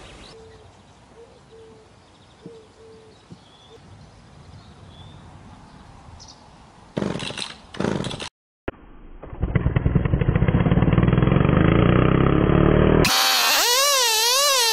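54 cc two-stroke engine of a 1970s McCulloch Pro Mac 1010 chainsaw being pull-started. After several quiet seconds, two loud pulls come about a second apart, then the engine catches and runs steadily. Near the end it turns to a loud warbling whine with wavering pitch: the saw cutting, in sped-up footage.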